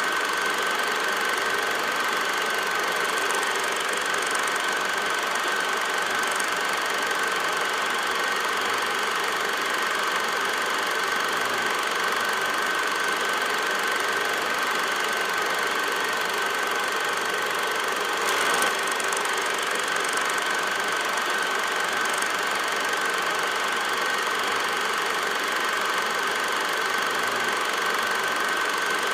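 Film projector running: a steady mechanical noise with a constant high whine, and one brief click a little past halfway.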